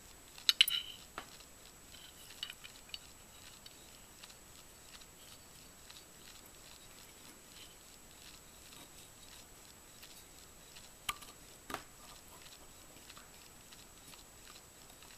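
Small metal parts clicking and tapping against an AR-15 lower receiver as they are fitted by hand. There is a sharp cluster of clicks about half a second in, a few light ticks around two and a half seconds, and two single clicks near eleven and twelve seconds. In between it is quiet, with a faint steady high whine.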